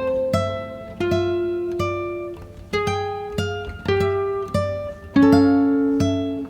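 Background music: a plucked acoustic guitar or ukulele playing an unhurried tune, each note or chord sounding sharply and fading, over low bass notes.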